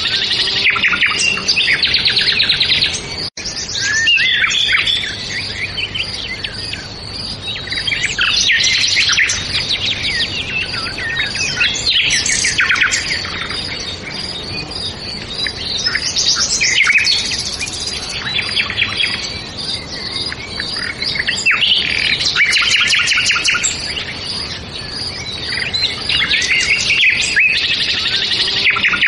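Many songbirds chirping and singing at once, a dense chorus of quick high chirps and trills that overlap without a break, except for a momentary drop-out about three seconds in.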